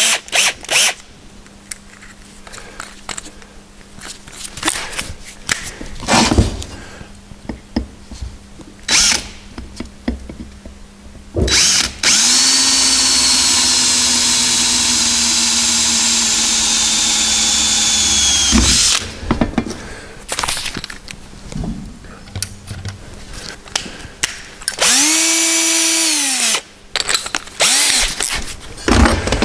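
Cordless drill boring a pilot hole through a metal exhaust pipe: one steady run of about seven seconds, then a short burst near the end that spins up and winds down. Short knocks and clicks come before and between the runs.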